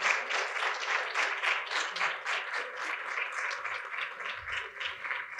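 Audience applauding, many hands clapping in a steady patter that slowly thins and fades.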